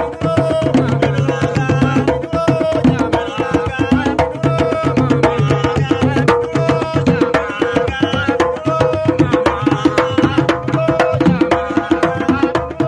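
Music built on fast hand-drum patterns, many strokes a second, under a melody and a steady held note.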